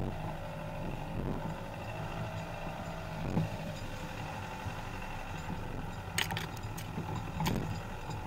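Skoda Octavia TDI diesel running steadily while driving on a grassy forest track, with tyre rumble and a few sharp knocks and clicks from the wheel and suspension going over the rough ground.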